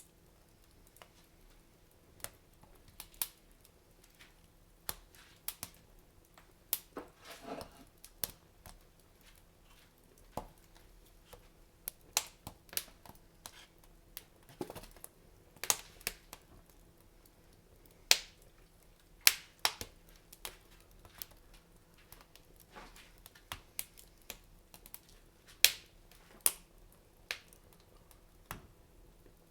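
Wood fire crackling in a fireplace: irregular sharp pops and snaps, a few seconds apart or in small clusters, with a brief hiss about seven seconds in.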